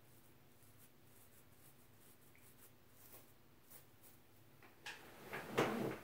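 Faint, scratchy strokes of a plastic comb's tail against the scalp, scraping loose flaky buildup. Near the end, louder rustling as the hair is handled by hand.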